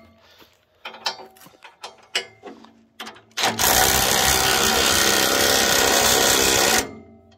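Ryobi cordless impact wrench hammering a nut onto a 3/4-inch grade 8 bolt through a steel loader bucket, snugging it down. It runs for about three seconds from halfway through and stops suddenly, after a few knocks and clicks of the tool and socket being handled.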